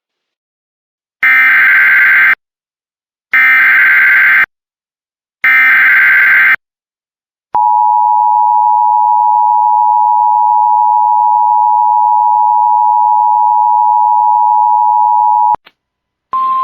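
Emergency Alert System SAME header: three one-second bursts of shrill data screech, then the two-tone EAS attention signal held steady for about eight seconds before it cuts off abruptly. A brief single tone sounds just before the end. Together they announce the start of a new emergency alert.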